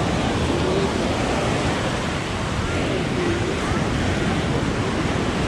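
Ocean surf breaking on a sandy beach: a steady wash of waves, with faint voices of people in the background.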